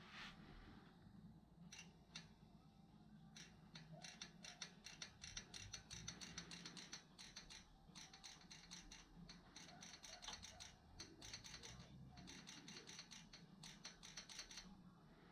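Faint, fast mechanical clicking in runs of a few seconds each, with short pauses between them.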